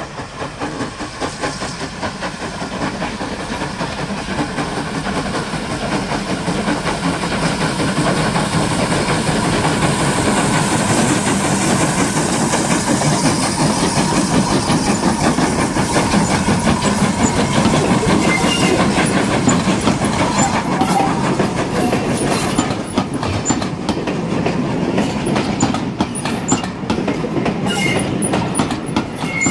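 Two GWR steam tank engines, 6400-class pannier tank 6430 and 4500-class small prairie 4566, double-heading a departing train, their exhaust beats coming fast and growing louder as they approach and pass. Later the coaches roll by with a clickety-clack of wheels over rail joints and a few brief wheel squeals near the end.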